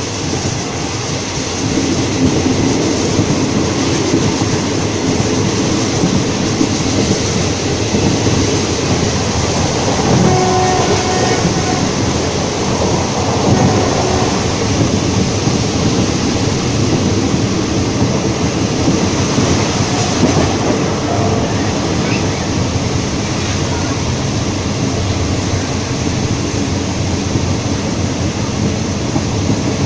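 Passenger train running along the track, heard from aboard: a steady rumble and rattle of the carriage and wheels on the rails.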